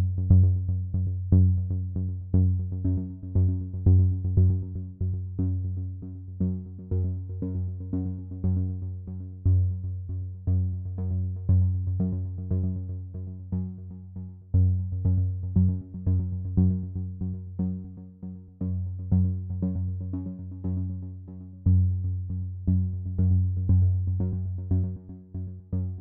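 Background music: synthesizer notes at about two a second over a steady bass.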